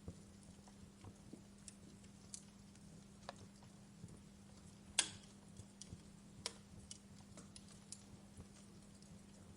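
Fireplace crackling: irregular small snaps and pops from burning wood, with a louder pop about five seconds in and another about a second and a half later, over a faint steady hum.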